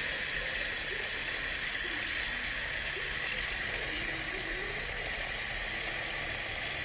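Kitchen tap running cold water steadily into a container, an even rushing that holds at one level throughout.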